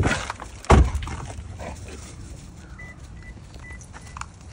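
A car door shut with a heavy thump just under a second in. Then quieter open-air sound as dogs run loose, with a few faint short high peeps around the middle.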